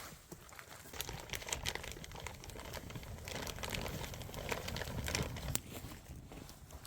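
Irregular crinkling and crackling with scattered sharp clicks.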